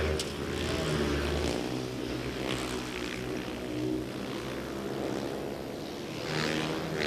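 Speedway motorcycles' 500 cc single-cylinder engines racing at high revs on the last lap, the notes of several bikes overlapping and rising and falling as they go through the bends.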